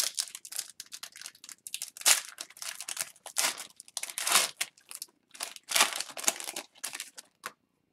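The plastic wrapper of an O-Pee-Chee Platinum hockey card pack is torn open and crinkled in the hands, making a string of crackling bursts that stop near the end.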